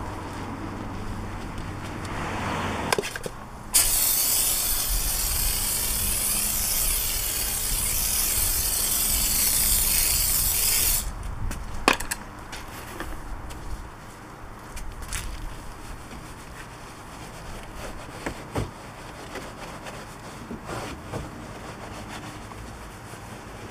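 Wheel-washing sounds on a foamed alloy wheel and tyre: a low hum for the first few seconds, then a loud, steady hiss of spray from about four seconds in that lasts some seven seconds and cuts off suddenly. After it come soft scrubbing strokes from a wash mitt and detail brush, with a few sharp clicks.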